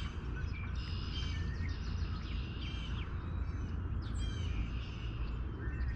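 Several songbirds singing and chirping, with repeated short trills and chirps, over a steady low rumble.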